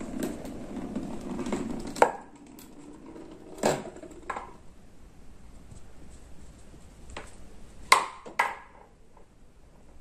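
A kitten purring for about the first two seconds, then a round metal compass being batted about and knocking on the floor: five sharp knocks, the loudest about two and eight seconds in.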